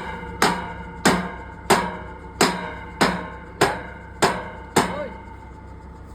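Hammer blows on a steel pipe, about eight even strikes each ringing out with a metallic tone, stopping about five seconds in.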